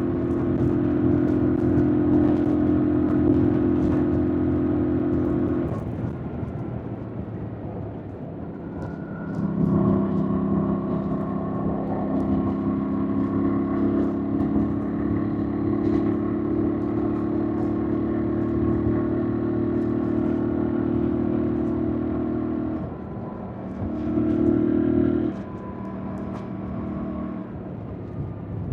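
2025 Yamaha MT-07's parallel-twin engine pulling at a steady pitch on the move. It eases off about six seconds in and comes back on throttle near ten seconds, holding an even note. It dips, surges briefly, then backs off near the end.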